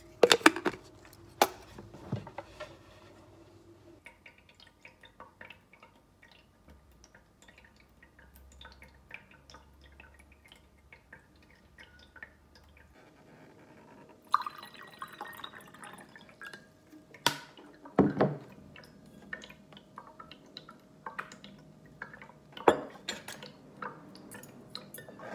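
Water purifier filter dripping, a steady scatter of small drops as water filters through, with a few louder clinks of tableware near the start and in the last third.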